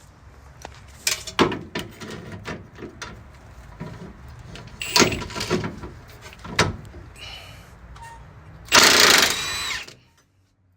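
Work on a rusted truck bolt: irregular sharp metal clanks and knocks from tools, then a loud burst about a second long near the end.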